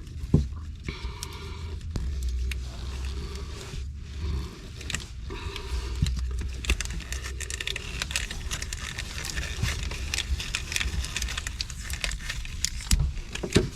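Tape being peeled off its roll and wrapped around a loose battery-cable terminal: crackling, peeling and scraping with many small clicks from handling, over a low steady hum.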